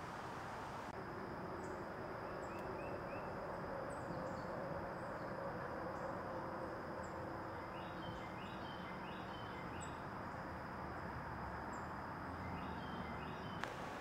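Outdoor ambience: a steady low rumble of background noise with a steady high insect drone over it. The drone starts about a second in and cuts off just before the end. Short high chirps are scattered through it, along with several quick runs of three or four short notes.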